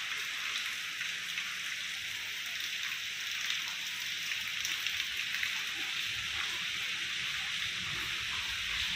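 Heavy rain falling steadily on wet paving and leaves: an even hiss with scattered ticks of individual drops.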